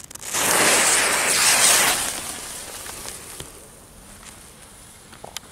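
Lit firecracker fuse hissing loudly with sparks for about two seconds, then fading to a faint fizz. A few light ticks near the end.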